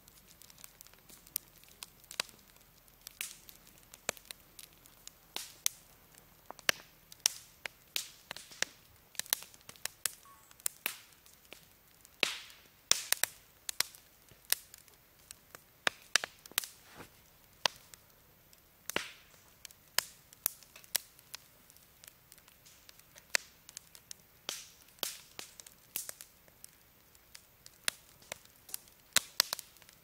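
Wood campfire crackling, with irregular sharp pops and snaps several times a second and now and then a louder crack.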